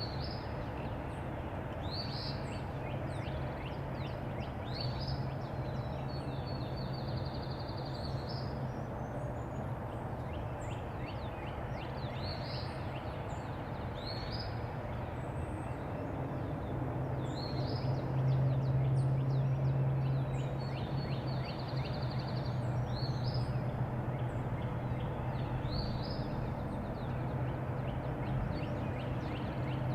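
A small songbird singing repeated short high phrases every second or two, with a few trilled runs, over a steady low hum and outdoor background noise. The hum grows louder for a few seconds about two-thirds of the way through.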